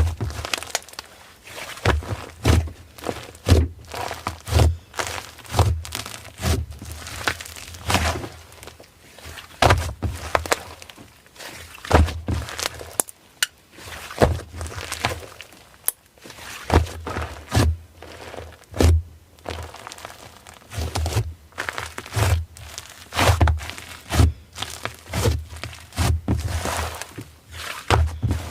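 Hands pressing, poking and squishing slime, making an irregular run of short clicky pops and soft thuds, a few a second.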